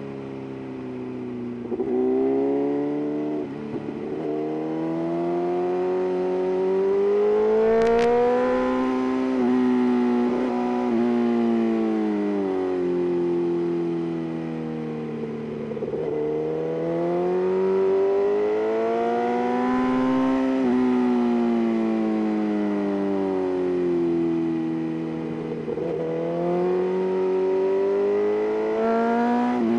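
BMW S1000RR's inline-four engine under way, its revs climbing under acceleration and falling off again in long repeated waves, with a few abrupt breaks in pitch. A short sharp click comes about eight seconds in.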